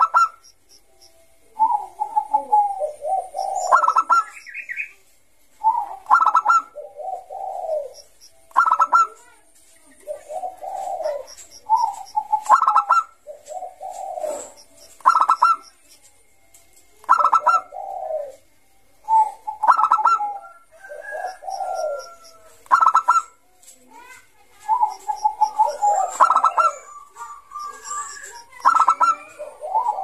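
Caged zebra dove of the Bangkok song-contest line (perkutut bangkok) singing its cooing song. Each phrase is a short run of rolling coos ending in a higher, clipped note, and the phrase repeats about every two to three seconds.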